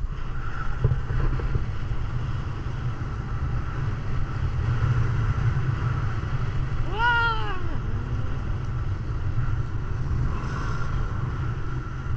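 Steady low rumble of wind and a motorboat's engine, with one short rising-then-falling cry about seven seconds in.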